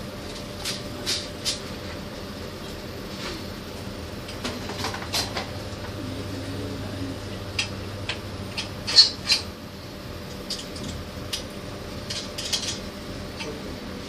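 Scattered metallic clinks and ticks of a spanner and nut bolts against the steel frame of a display rack as the bolts at its base are tightened, the loudest pair about nine seconds in, over a steady background hum.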